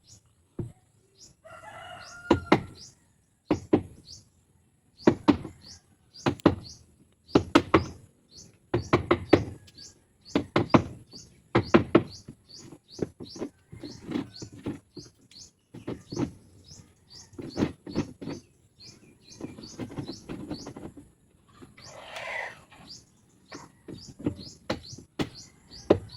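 Repeated sharp hammer-like blows in uneven clusters, each with a brief ringing tail. A short bird or rooster call comes in about two seconds in, and another near the end.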